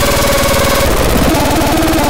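Electronic sound from the Vapetron Megaloman model 23: a rapid low buzzing pulse under a sliding tone that falls slowly and cuts off just under a second in, then short low blips before the buzz resumes.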